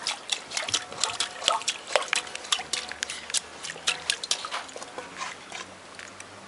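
A puppy splashing and pawing at water in a steel bowl: quick, irregular splashes that come thick at first and thin out toward the end.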